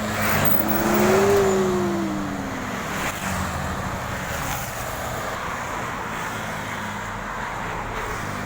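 A large bus passes close by on the highway. Its engine note climbs and then drops over the first couple of seconds while the noise of tyres and wind swells and fades, and steady traffic rumble runs on after it.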